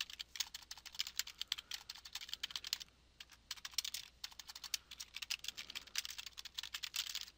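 Typing on a computer keyboard: a fast run of key clicks, with a short pause about three seconds in.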